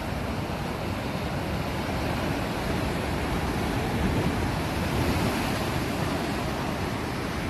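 Sea surf: a steady rush of waves washing on the shore, with small swells in loudness.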